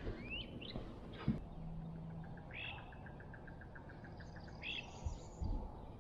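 Wild birds calling: several short, arching chirps and a quick run of soft repeated notes, with a few faint low knocks.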